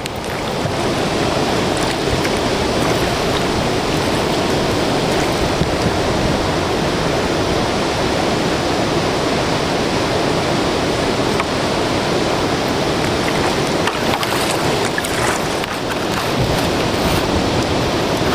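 Steady rushing of glacial meltwater.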